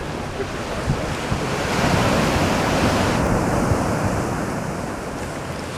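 Ocean surf roaring, with wind buffeting the microphone; the roar swells about two seconds in and eases off near the end.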